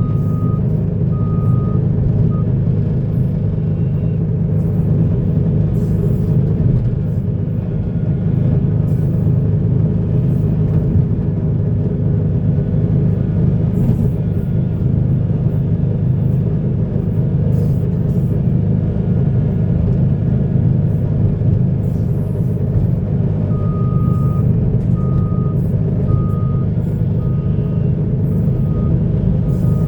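Heavy diesel earthmoving machinery, a hydraulic excavator and articulated dump trucks, running steadily under load. A truck's reversing alarm beeps at the start and again for several seconds near the end, and short metallic clanks come now and then.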